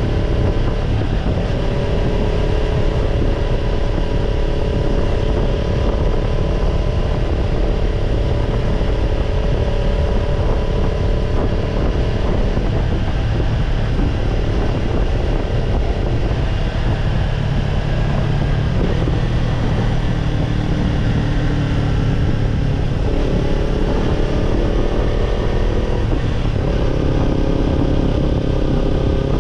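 Kawasaki Ninja 250's parallel-twin engine running through a BEET Japan NASSERT Evolution Type II titanium slip-on muffler. The exhaust note holds steady for stretches and changes pitch in steps a few times, around the middle and again near the end.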